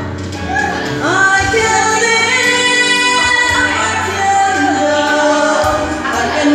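A woman singing karaoke into a handheld microphone over backing music, holding long notes that slide in pitch.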